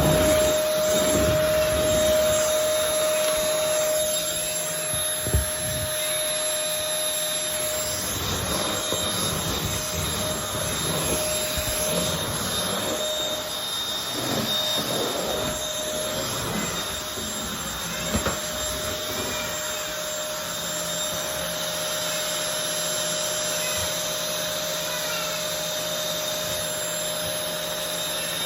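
Vacuum cleaner running steadily, a motor whine over a rushing noise, with a couple of brief bumps as it is pushed around.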